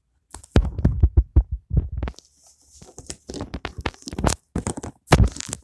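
Handling noise on a phone's microphone: a run of loud, irregular bumps and rubbing as cloth and hands brush and knock against the phone while it is moved.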